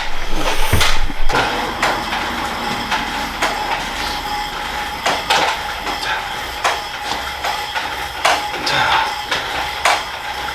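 Metal weights clanking and knocking over a steady machine hum, with sharp knocks every second or so.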